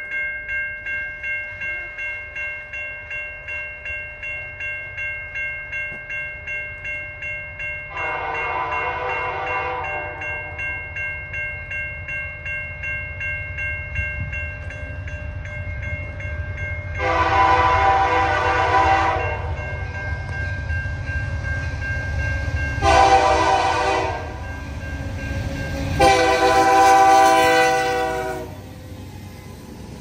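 CN SD75I 5701's Nathan K3H three-chime air horn blowing the grade-crossing signal, long, long, short, long, over the rising rumble of the approaching freight. Before the first blast a crossing bell rings steadily, about two strokes a second.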